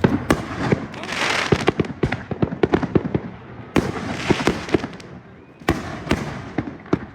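Fireworks going off all around: a dense run of sharp bangs and pops, with louder booms near the start, about four seconds in and near six seconds. Two hissing, crackling showers come about a second in and about four seconds in.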